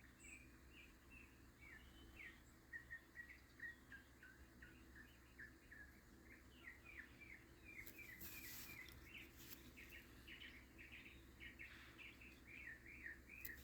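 Faint backyard birds chirping, a steady run of short, quick notes repeating throughout, with a brief soft hiss about eight seconds in.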